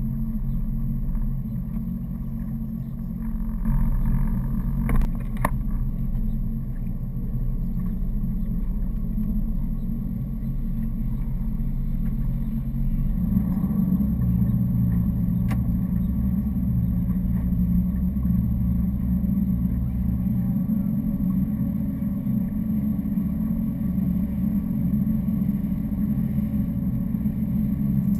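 Wakeboard boat's engine running steadily, a low hum carried through the hull, growing louder about halfway through. A few sharp clicks or knocks sound over it.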